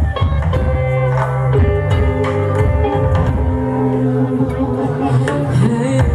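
Live rock band playing: electric guitar, bass and drums, loud through a club PA, with sustained guitar notes over a steady drum beat.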